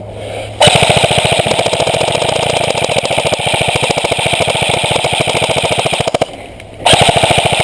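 Airsoft gun firing on full auto: a rapid, even rattle of shots in one long burst of about five and a half seconds, then a second short burst near the end.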